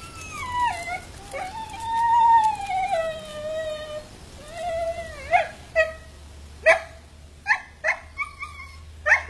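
A dog whining in a long, drawn-out cry that falls in pitch and holds, then breaking into a run of short, sharp yips, about two a second, from about halfway in: the excited whining and yipping of a dog watching squirrels.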